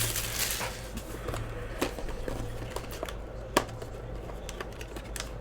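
Light handling of a trading-card hobby box and its packs: scattered soft clicks and crinkles, with a couple of sharper taps, over a low steady hum.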